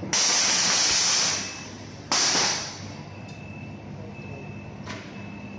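Two loud bursts of hissing air, the first steady for about a second, the second shorter and fading away, over the steady hum of the laser cutting machine and a faint beeping tone that comes and goes.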